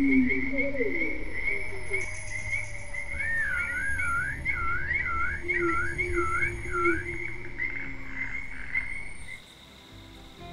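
Electronic science-fiction flying-saucer sound effect: a rapidly pulsing high tone with a tone warbling up and down over it from about three to seven seconds in, and low sliding tones near the start. It cuts off suddenly about nine seconds in.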